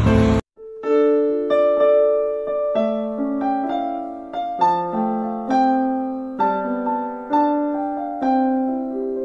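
Background music: solo piano playing slow notes and chords, about one a second, each left to ring and fade. It starts just after a loud noise cuts off abruptly about half a second in.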